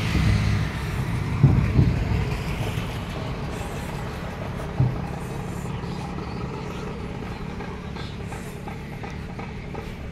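Road traffic going by on the adjacent highway: a low, steady noise that fades away over several seconds, with a few dull thumps in the first half.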